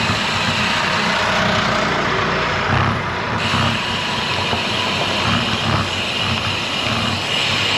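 Steady wind and road noise on a riding cyclist's camera microphone: a loud rushing with irregular low buffeting, among road traffic.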